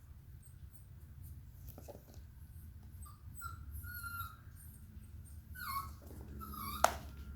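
A dog whining in several short, high cries, some falling in pitch, with a sharp click near the end, over a steady low hum.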